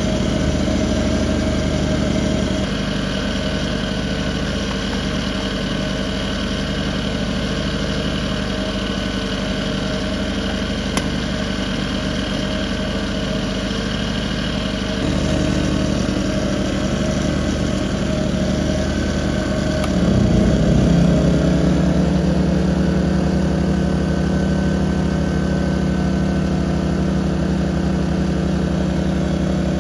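Two Firman inverter generators running together in parallel. About two-thirds of the way in their engine note shifts and they run faster and louder, speeding up to carry a roughly 1.5 kW electric kettle load.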